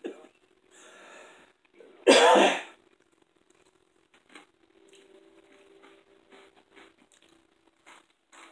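A man coughs once, loudly, about two seconds in, after a softer throat sound a second earlier. Faint mouth and eating clicks follow.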